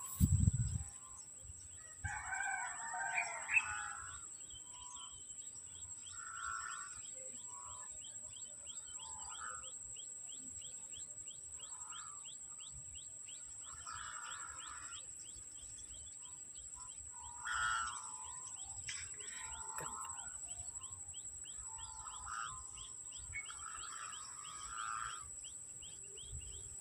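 Faint outdoor ambience of birds calling every few seconds, over a steady thin high whine, with a fast run of faint ticks through the middle stretch.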